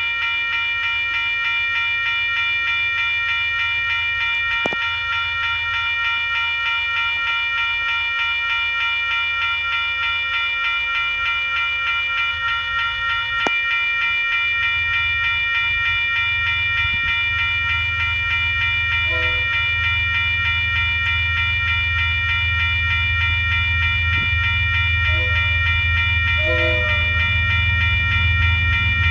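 Western Cullen Hayes electronic crossing bells ringing very fast and without a break. From about halfway, the low rumble of an approaching train grows louder, and the train's horn gives short blasts about two-thirds of the way in and again a few seconds later.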